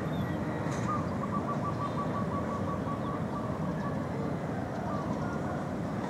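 Steady low rumble of city traffic. About a second in, a bird calls a rapid run of short, even notes for a couple of seconds.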